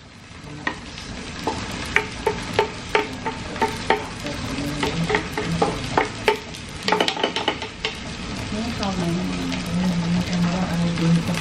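Food sautéing in a frying pan, sizzling, while a spatula stirs it and clicks and scrapes against the pan, with a quick run of clicks about seven seconds in. A low steady hum comes in near the end.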